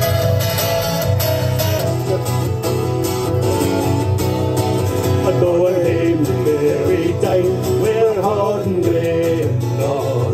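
Live acoustic folk music: two acoustic guitars strummed steadily, amplified through stage speakers, with two men's voices singing together from about five seconds in.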